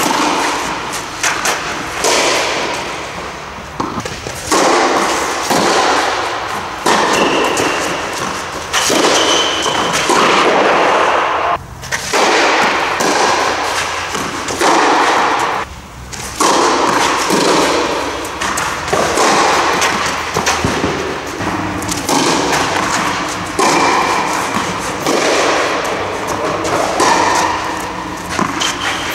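Tennis ball struck by rackets and bouncing on a clay court during rallies, a hit every second or two, each with a long echo inside the air-supported dome.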